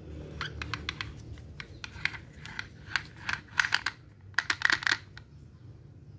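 Rapid clicking and rattling of metal parts as the old Makita angle grinder's gear head is handled and its spindle flange turned by hand. The clicks come in uneven clusters and are loudest between about three and a half and five seconds in.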